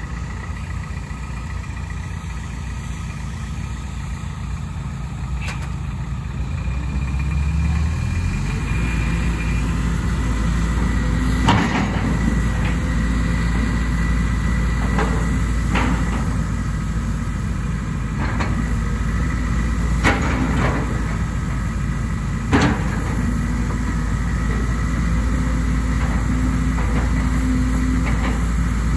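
Link-Belt 250 X4 long-front excavator's diesel engine running, stepping up in speed and loudness about eight seconds in as the hydraulics lift the long boom and arm. About half a dozen sharp metallic knocks come through the middle stretch.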